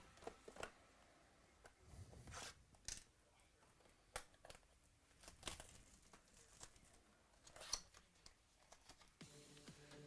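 Faint tearing and crinkling of trading-card pack wrappers being opened, with scattered short rustles and clicks from handling. Background music comes in near the end.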